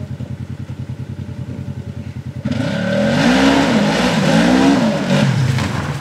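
Polaris RZR XP 900 side-by-side's twin-cylinder engine running low and even, then suddenly revved hard about two and a half seconds in as it drives up out of a mud hole. The pitch rises and falls twice, then drops back to a low, even note near the end.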